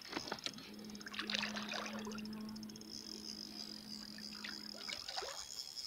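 Water sloshing and trickling at the surface as a hooked wels catfish swirls close to the boat, in scattered small splashes, with a low steady hum through the middle.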